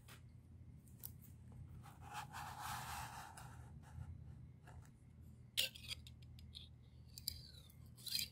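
A thin plastic background sheet being handled against the glass tank: soft rubbing and crinkling, with its clear protective film peeling, and scattered sharp clicks and crackles. The loudest click comes about halfway through and a few more come near the end.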